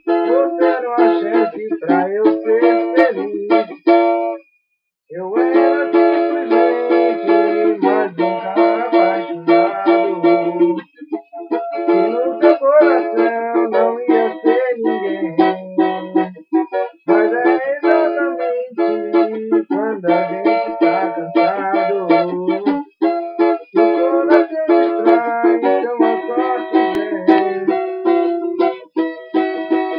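Music played on a plucked string instrument, a run of quick picked notes with a brief full stop about four and a half seconds in.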